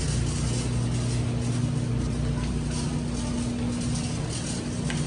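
Steady low hum and hiss of open refrigerated produce display cases in a supermarket, with a steady tone in the hum that stops about four seconds in.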